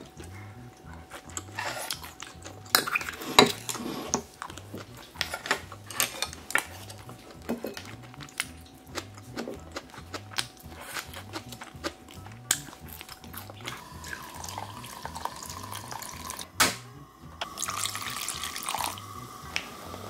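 Kitchen work sounds: cookware and metal utensils clinking and knocking many times at irregular intervals, with water running or pouring.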